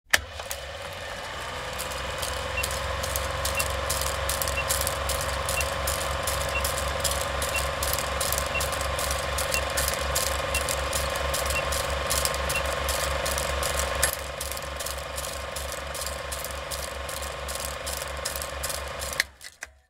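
Old film projector sound effect: a rapid, steady mechanical clatter over a hum, with a short high blip once a second for about ten seconds. It cuts off just before the end.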